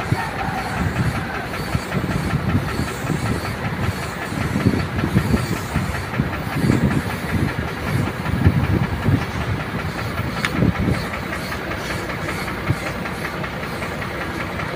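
Siphon-cup air spray gun hissing steadily as compressed air atomises paint, with an uneven low rumble underneath.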